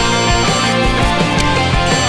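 Background rock music with distorted guitars and a steady drum beat.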